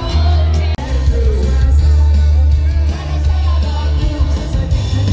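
Live band and singers performing amplified music, loud with a heavy bass line and a sung melody. There is a brief break just under a second in, after which the music continues.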